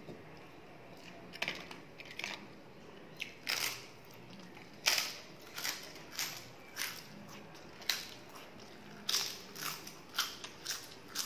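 Crisp papad (fried lentil wafer) being bitten and chewed: a string of irregular sharp crunches starting about a second in.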